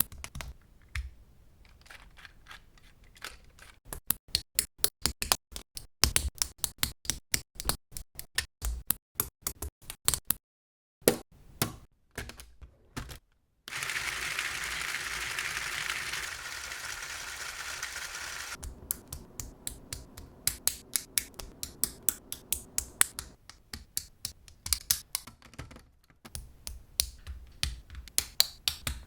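Plastic building-brick parts of a Mould King 10214 rotary engine model clicking and snapping together by hand, in quick irregular runs of clicks. Near the middle, a steady noise lasts about five seconds before the clicking resumes.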